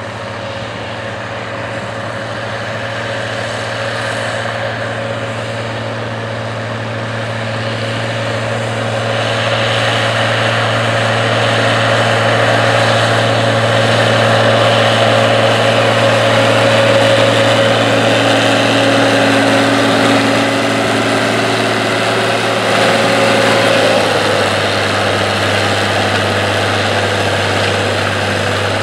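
1966 Cockshutt 1850 tractor's Perkins 354 six-cylinder diesel running steadily under load while pulling a disc harrow through tilled ground. It grows louder over the first ten seconds or so as it comes closer, and its note dips slightly near the end.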